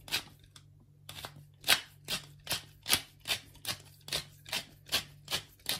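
Wooden pepper mill grinding black peppercorns: a short crunchy rasp with each twist, about two and a half a second, with a brief pause about half a second in.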